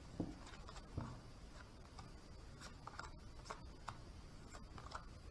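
Faint handling of tarot cards: light rustling and scattered soft clicks and taps, with two soft thumps in the first second.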